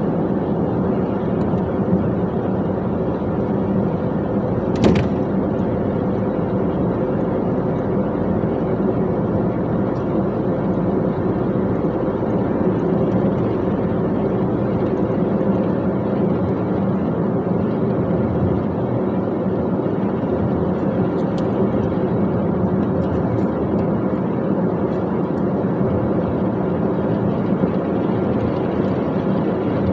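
Dump truck's engine droning steadily with road noise while driving. There is a single sharp click about five seconds in.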